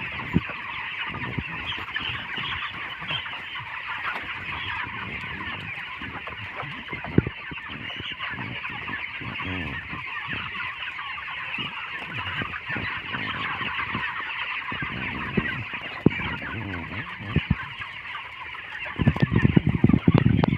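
Dense, continuous chatter and clucking of a large flock of broiler chickens in a poultry house, with scattered short knocks. Near the end there is a loud low rumble.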